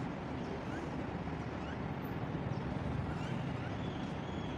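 Steady low rumble of outdoor city background noise, with a few faint short chirps.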